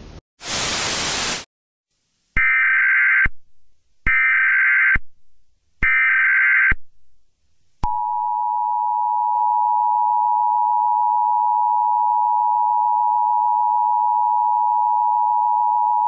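Emergency Alert System broadcast opening: a brief burst of static, then three short bursts of the SAME header's warbling digital data tones, then the two-tone EAS attention signal held steady for about eight seconds.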